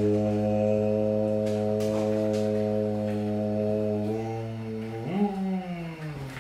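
A man's voice chanting a long, steady "om" on one low pitch for about five seconds as he meditates. Near the end the chant breaks into a short sliding vocal sound that jumps up and falls away while the dog licks his face.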